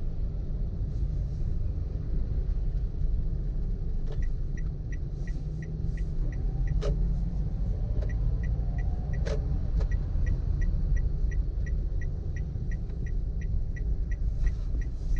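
Car cabin with a steady low road-and-engine rumble. From about four seconds in, an even ticking of roughly two to three clicks a second, typical of a turn-signal indicator, follows the sat-nav's turn-left instruction. A few sharp knocks sound over it, at about four, seven and nine seconds in.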